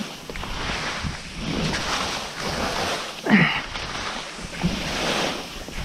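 Skis scraping and carving through softened spring snow on a steep chute, the rush swelling with each quick turn, a little more than once a second, with one louder, sharper scrape about three seconds in. Wind buffets the microphone throughout.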